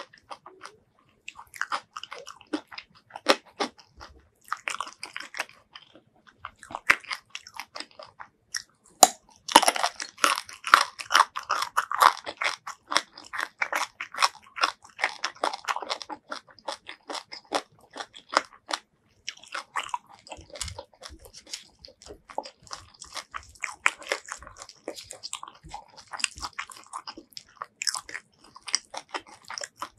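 Close-miked eating: a person chewing and crunching food in a rapid, uneven run of wet mouth clicks and crunches. The chewing is busiest in the middle stretch, with a short lull after it.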